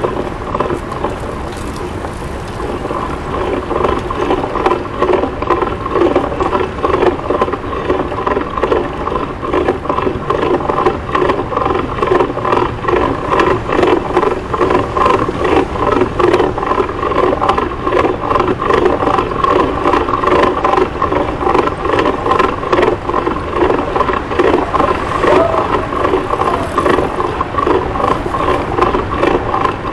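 Citi Bike rolling over city pavement, with a continuous dense rattle and road noise from the bike and the body-worn camera shaking.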